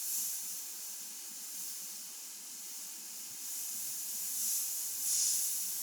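Badger Renegade Spirit airbrush hissing as it sprays paint at about 35–40 psi. The hiss swells and eases a few times.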